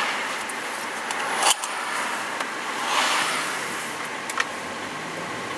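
Steady road and wind noise inside a car towing a caravan, swelling as oncoming cars whoosh past at the start and again about three seconds in. A sharp click comes about one and a half seconds in, and a smaller one near the end.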